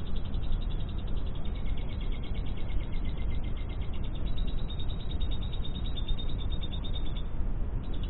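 Lovebird song played back as a mastering recording: a fast, continuous chatter of short high chirps, with a steady held note joining about a second and a half in and dropping out near the end, over a steady low hum.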